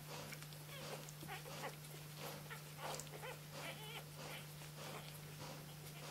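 Newborn flat-coated retriever puppies, three days old, making small squeaks and grunts while they nurse. Short, faint calls come several times a second over a steady low hum.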